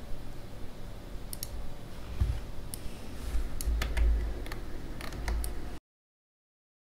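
Light clicks and ticks from fingers handling and knotting a strand of flexible TPE filament, over a low rumble. The sound cuts off to silence near the end.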